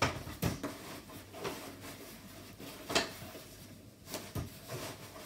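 A stroller seat unit's metal-and-plastic frame knocking against the floor as it is turned upright and set down, then a few more knocks and light rustling as its harness straps and buckle are handled. The sharpest knocks come right at the start and about three seconds in.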